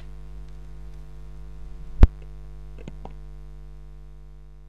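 Outro of a hip-hop beat: a held low drone of steady tones that fades out near the end, with one sharp click about two seconds in and two faint clicks about a second later.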